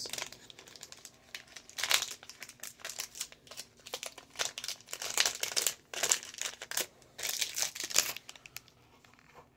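Plastic packaging of a lapel pin crinkling and rustling in the hands, in irregular bursts, dying away near the end.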